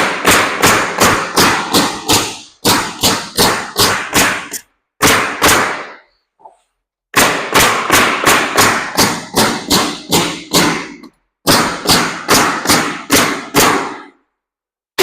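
Coil nail gun firing nails through timber boards into the rails of a wooden door, in quick runs of sharp shots about three a second, with short pauses between runs.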